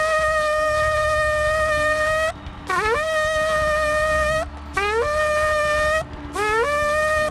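Shofar blown in a series of blasts. A held note ends about two seconds in, then three more notes follow, each sliding up into a steady, bright, buzzy tone.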